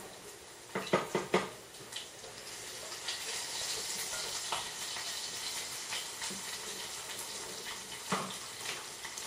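A few clattering knocks of kitchenware about a second in, then a steady rush of water running from a kitchen tap, with another clatter near the end.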